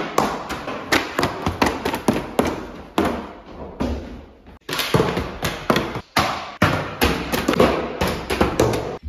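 Plastic water bottle tumbling and bouncing down wooden stairs: an irregular run of many thuds and knocks, some in quick clusters.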